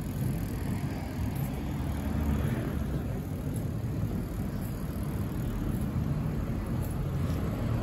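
Steady low rumble of road traffic on a city street.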